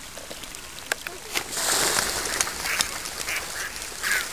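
Birds calling over the water, short harsh calls repeated a few times a second in the second half. A brief rush of noise about a second and a half in is the loudest sound, with scattered sharp clicks.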